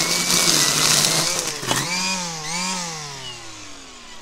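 Makita DUR187LZ 18V brushless cordless line trimmer running at high speed, its nylon line whipping through weeds with a steady whine and hiss. About a second and a half in the pitch dips, rises briefly twice, then falls away in a long glide as the cutting head winds down off the trigger.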